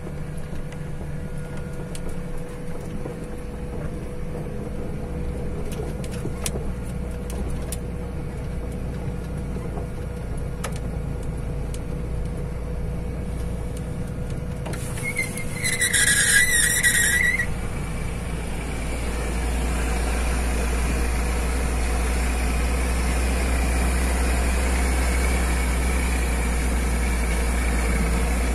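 Semi-truck's diesel engine running steadily at low speed on a rough dirt road, heard from inside the cab. A high squeal cuts in about 15 seconds in and lasts a couple of seconds, and the engine grows louder from about 19 seconds in.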